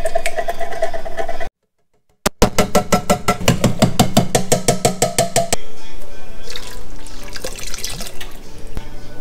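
Liquid glugging and splashing out of tin cans poured into a pot of chowder. After a brief cut, a fast, even run of glugs, about nine a second, as air gulps back into an emptying can. Softer pouring follows.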